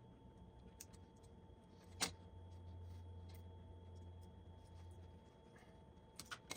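Small hand-tool clicks as crimp connectors are worked off battery cable ends: one sharp click about two seconds in and a few quick ticks near the end, over a faint low hum.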